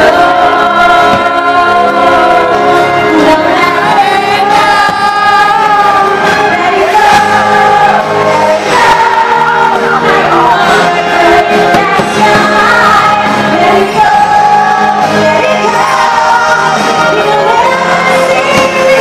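Show soundtrack music with sung vocals and choir over orchestral accompaniment.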